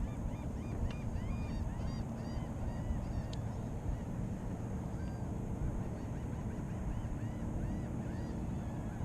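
A flock of birds calling: many short, arched calls overlapping and repeating, over a steady low rumble.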